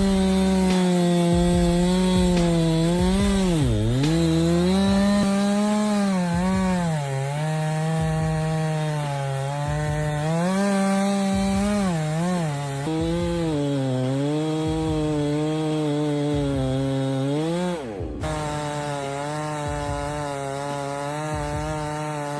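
Two-stroke chainsaw running at high revs while cutting wood. Its pitch sags as the chain bites and dips sharply and picks back up a few times, with an abrupt break about eighteen seconds in.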